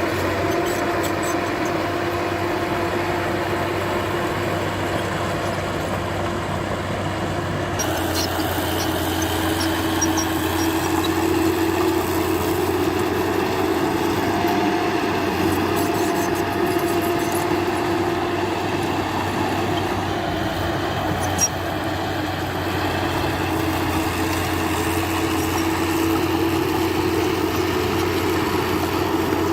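Diesel earthmoving machinery running steadily: a constant engine drone with a steady whine over it, a few faint metallic clicks, and one sharp knock about 21 seconds in.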